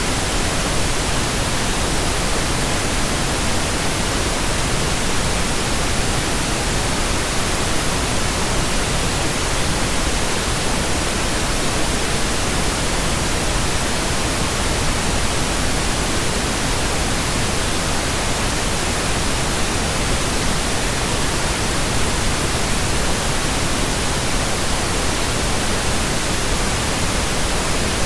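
Steady generated pink noise: an even, unbroken hiss spread across the whole range, with no change in level or character.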